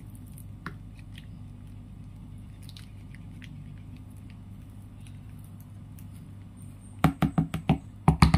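Mozzarella being grated on a flat metal hand grater over a plastic bowl: faint soft scraping and small ticks over a steady low hum. About seven seconds in, a quick run of loud knocks and rattles as the metal grater is handled against the bowl.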